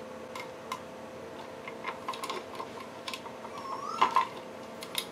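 Light clicks and taps of hard 3D-printed plastic parts being handled and fitted together, over a faint steady hum. A brief squeaky gliding sound comes about four seconds in.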